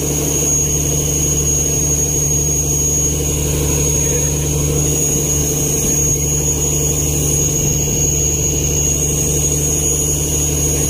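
Boat engine running steadily under way, a constant low drone with a thin high whine over it, and the hull's wake rushing past.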